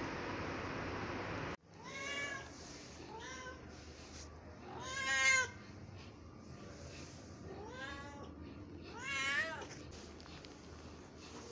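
A domestic cat meowing five times, short separate meows spread over several seconds, the loudest about halfway through. A steady hiss of background noise cuts off abruptly in the first second and a half.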